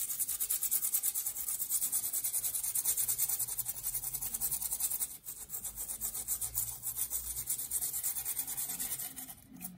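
A small brush scrubbing the wet circuit board of a graphics card in soapy water: quick, scratchy back-and-forth strokes, with short pauses about five seconds in and near the end.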